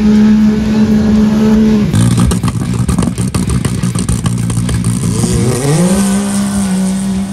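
Side-by-side UTV engines running hard at high revs, with scattered clattering as the wheels churn and throw mud. About five seconds in, an engine's pitch climbs as it revs up, then holds steady.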